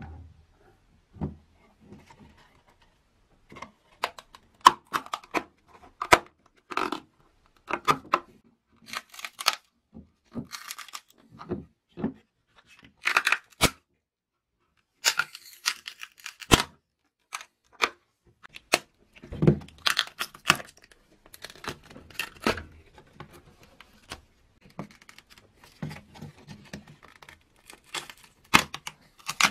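A clear plastic mould being cracked, torn and peeled off an epoxy-resin saw handle casting: irregular tearing and crackling, with a couple of sharp snaps about halfway through.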